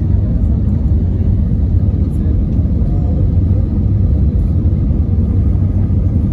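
Steady low rumble of engine and airflow noise inside the cabin of an Airbus A320 descending on final approach.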